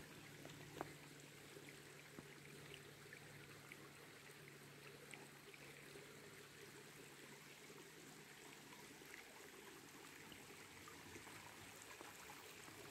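Near silence: a faint, steady rushing hiss with a few soft ticks scattered through it.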